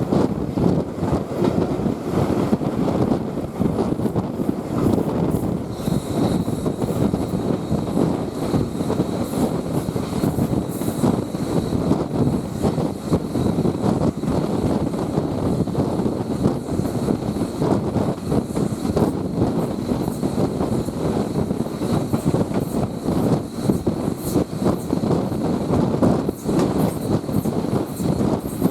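Heritage railway carriage running along the track behind a steam locomotive, heard from on board: a steady rumble of wheels on rail. A faint high whine joins about six seconds in.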